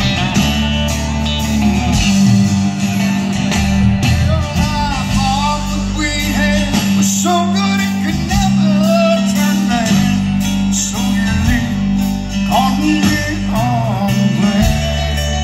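Live country band playing with electric guitars, bass and drums, with a singer's voice carrying the melody over the band, heard from the audience through a phone's microphone.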